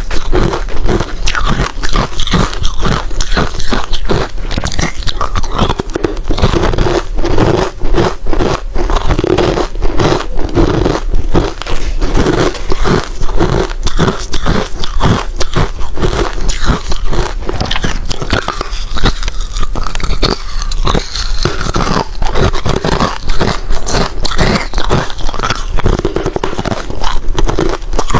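Hard ice being bitten and chewed close to the microphone: rapid, crackling crunches, one after another without pause.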